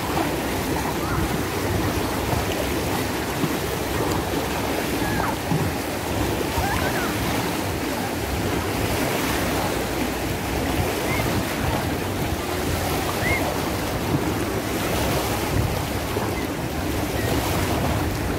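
Wave-pool wave machine running: churning pool water with a steady rushing, splashing wash.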